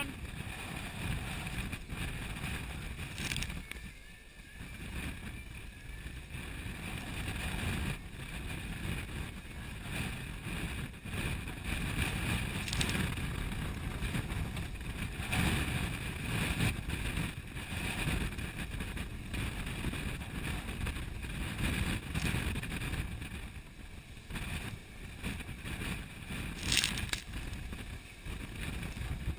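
Strong wind of 35 to 45 knots buffeting the microphone over the rush and slosh of big waves along a sailing yacht's hull, the noise rising and falling in gusty surges.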